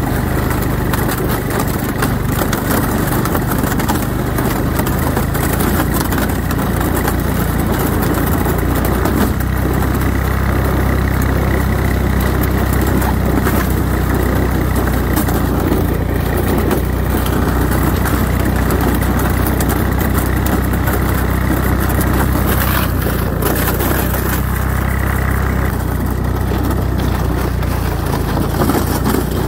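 ATV engine running steadily while the machine travels at an even speed, with one short knock about 23 seconds in.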